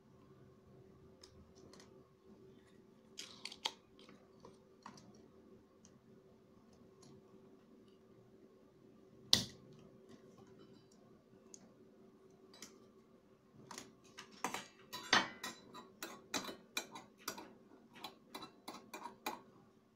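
Spring-loaded desoldering pump firing with one sharp snap about nine seconds in, amid scattered light clicks and taps of tools on a circuit board. A quick run of clicks and knocks near the end.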